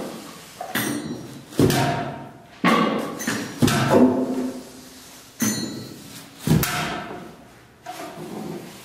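Sparse struck percussion: a series of separate hits, roughly one a second, each ringing briefly with a pitched tone before the next.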